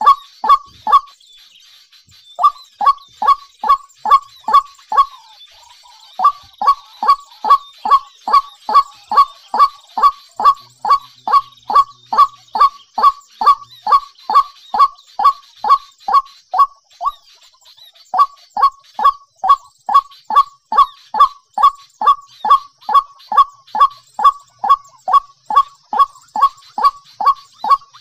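A bird's honking call, repeated about three times a second in a long, very even series, with three short breaks. A steady faint high hiss runs behind it.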